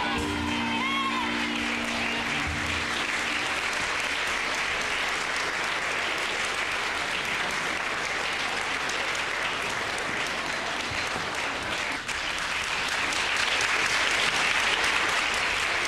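Audience applauding a stage performance, growing louder near the end. The music's last held chord fades out in the first few seconds.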